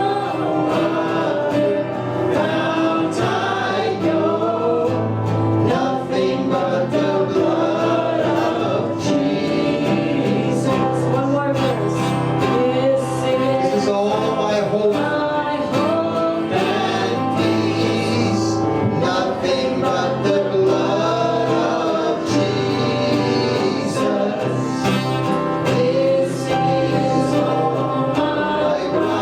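Gospel-style worship song: a group of voices singing together over instrumental accompaniment with a sustained bass line.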